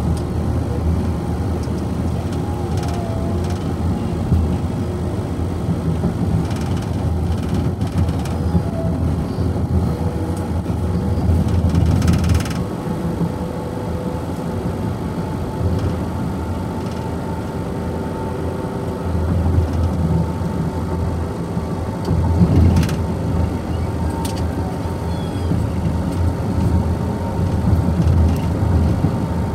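Road and engine noise inside a moving car's cabin: a steady low rumble of the car driving on the highway.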